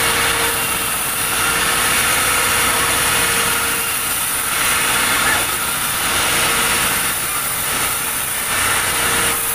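Sawmill machinery running steadily, a continuous mechanical din with a constant mid-pitched whine.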